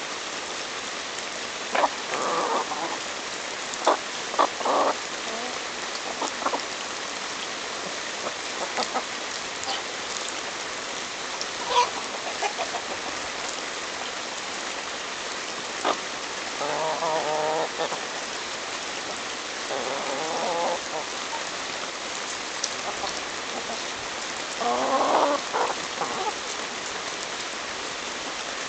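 Chickens clucking in a few short runs and pecking at a hand-held ear of corn, their beaks striking the cob in sharp clicks, over a steady hiss.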